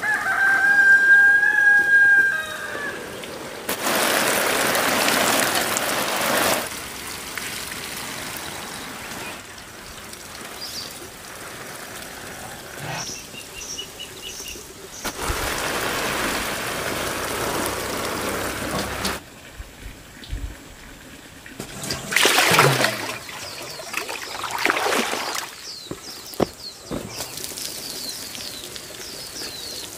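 Water sprinkling from a watering can's spray rose onto leafy vegetables and soil, in several pours of a few seconds each. It opens with a drawn-out call of about two seconds, and small birds chirp now and then, more often near the end.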